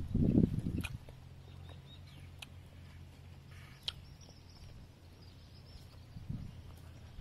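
A person eating with a spoon: chewing and mouth sounds for about the first second, then a quieter stretch with a few light clicks and a faint steady low hum, before the chewing starts again at the very end.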